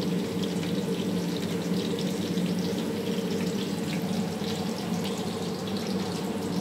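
Vegetable pieces deep-frying in a wide pan of hot oil, a steady crackling sizzle, over a steady low hum.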